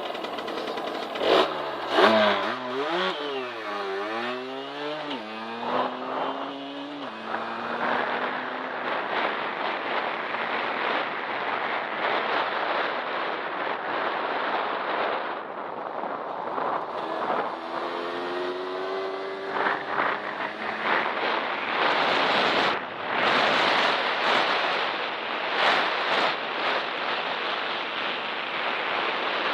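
Derbi Senda X-Treme 50cc two-stroke dirt bike engine revving up and down in quick repeated blips, with a couple of sharp knocks near the start. For much of the time it sits under a loud, even rushing noise, with another rising rev about two thirds of the way through.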